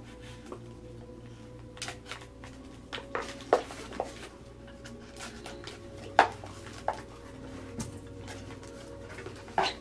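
Cardboard shipping box being opened and unpacked by hand: flaps pulled and contents shifted, giving scattered sharp rustles and knocks, the loudest about three and a half and six seconds in, over a faint steady hum.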